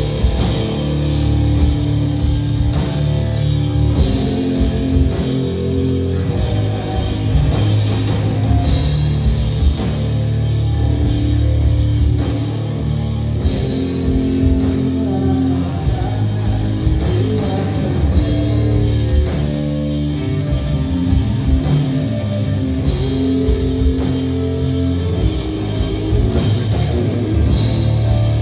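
Live rock band playing: electric guitars and drums with a singer, heard from among the audience.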